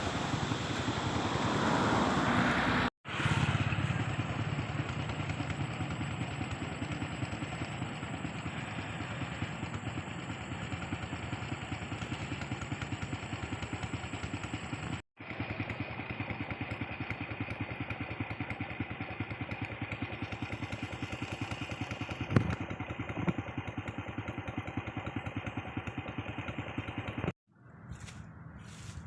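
Motorbike engine running steadily, broken by two brief drop-outs, then giving way to much quieter outdoor sound near the end.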